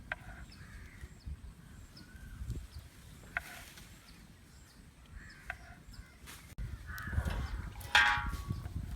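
Crows cawing now and then, with a few sharp clicks. Low rumbling noise sets in about two-thirds of the way through, and a louder, harsher call comes near the end.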